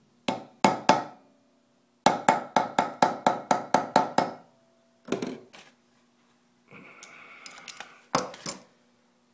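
Hammer striking a steel concrete nail wedged into a drilled-out broken screw, to bite it into the screw so it can be turned out. A few sharp metallic taps come first, then a quick run of about ten taps at roughly five a second, then a few more, with a brief scraping sound near the end.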